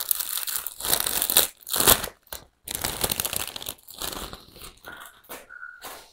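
Clear plastic plant sleeve crinkling and rustling in irregular bursts as it is handled and pulled off a potted begonia, dying away near the end, with a brief squeak just before it stops.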